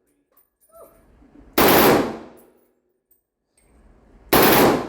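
A select-fire gun fired twice, about a second and a half in and again near the end. Each report is very loud and sudden, with a fading tail.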